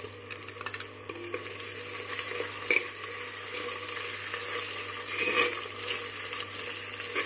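Chopped tomatoes sizzling in hot oil with onions in a clay pot, stirred with a metal slotted spoon that clicks and scrapes against the pot, with a louder clatter a little under three seconds in and a louder stretch of stirring around five seconds in.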